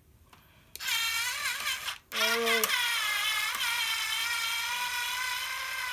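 A small electric motor running with a steady, high-pitched whine, in two runs: a short one starting about a second in, then a longer one from about two seconds in that settles to one even pitch.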